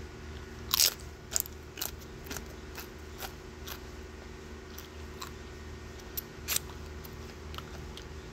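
A crisp tortilla chip is bitten and chewed: a sharp crunch about a second in, then crunchy chewing about twice a second that thins out, with one more loud crunch about two-thirds of the way through. A steady low hum runs underneath.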